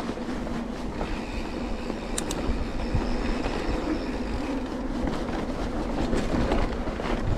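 Steady rumble with fast rattling clicks and wind on the microphone, from a bicycle ride over rough ground.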